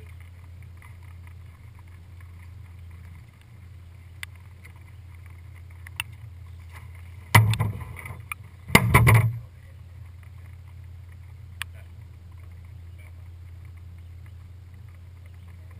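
Steady low hum, broken about seven and nine seconds in by two loud bouts of thumping on the boat's deck as a smallmouth bass is landed, with a few single sharp ticks before and after.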